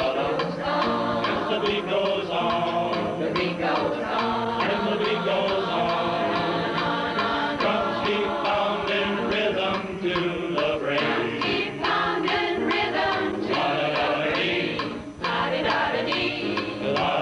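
Music with a group of voices singing together like a choir.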